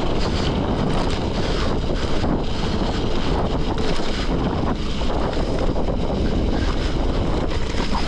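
Wind rushing over the microphone, mixed with bicycle tyres rolling over a loose dirt-and-gravel road at speed on a descent. A steady, dense noise.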